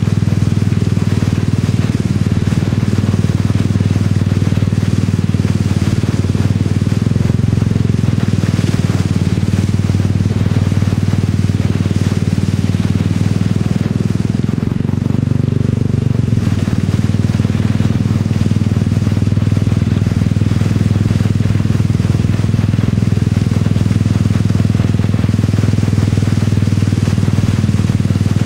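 A small motorbike with a sidecar riding through shallow floodwater: its engine runs steadily under the hiss and splash of water thrown up by the wheels.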